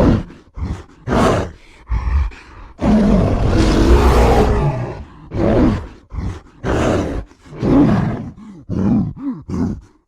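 Spliced creature roars, growls and grunts made from animal and movie-monster sound effects: a long roar lasting about two seconds, starting around three seconds in, among a string of short growls and grunts.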